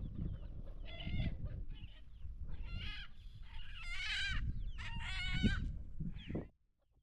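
Chickens calling: four or five short, drawn-out calls about a second apart over a low rumble, all cutting off sharply near the end.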